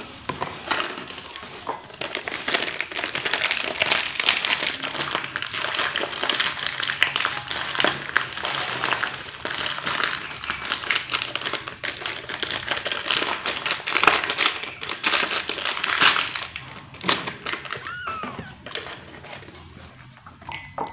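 Foil pouch of powdered milk formula crinkling and rustling as it is handled and scooped from, with many small clicks and taps. It eases off near the end.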